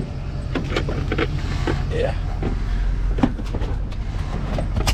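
Van engine running, heard from inside the cab as a steady low hum, with scattered small clicks and rustles.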